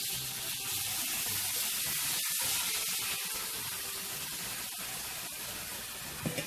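Sauce poured into a hot skillet of browned chicken pieces, sizzling and hissing steadily as it hits the hot oil and heats toward a boil.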